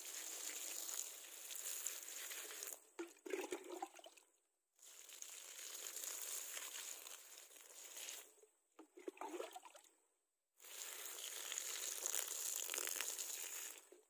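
Water poured from a white plastic container splashing onto leafy seedlings and soil while watering a garden bed. It comes in three pours of a few seconds each, with brief breaks and spattering tails between them.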